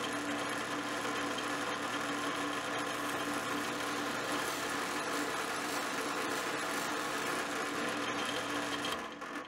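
Drill press running steadily with a 1-inch Forstner bit cutting into a plywood hub to enlarge its centre hole. The running sound stops near the end.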